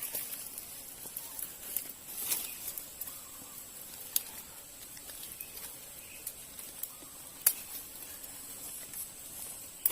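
Outdoor ambience: a steady high-pitched insect buzz, with a few scattered sharp clicks and snaps, the loudest about seven and a half seconds in.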